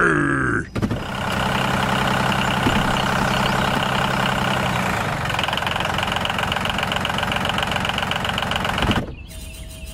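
Tractor engine running steadily, its note shifting about halfway through, and it cuts off about nine seconds in. A short falling whistle-like glide sounds at the very start.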